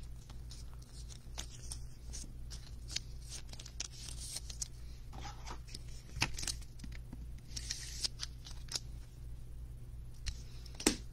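Trading card being slid into a soft plastic sleeve and a hard plastic card holder: rustling and scraping of plastic with scattered small clicks, and one sharper click near the end.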